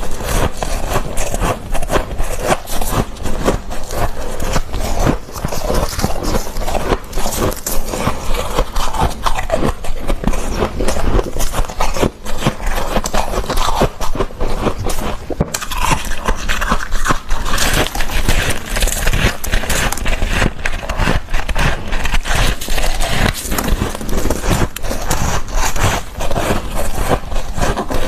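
Close-miked chewing and crunching of soft, fluffy freezer frost, a continuous dense run of small crackling crunches. The sound breaks off for an instant a little past halfway.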